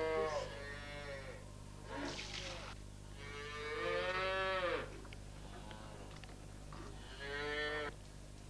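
Young calves bawling one after another, about five calls, each roughly a second long and rising then falling in pitch; the loudest comes about four seconds in.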